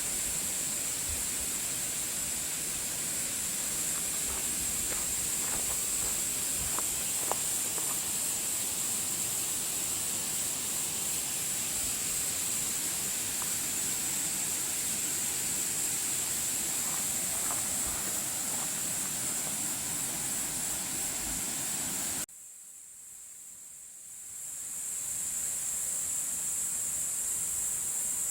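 Steady rushing hiss of a mountain valley stream, with a high-pitched band above it. It drops away suddenly about 22 seconds in and fades back up about two seconds later.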